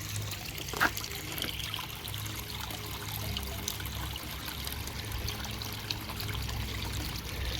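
Backyard pond waterfall running, water trickling and splashing steadily into the pond, with one brief sharp click about a second in.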